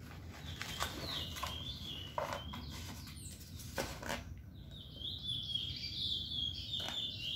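A bird calling twice, each call a long, high, drawn-out note lasting about two seconds, over a few soft clicks and rustles.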